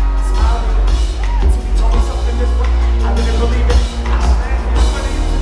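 Loud live band music over a concert sound system, with drums and a heavy bass.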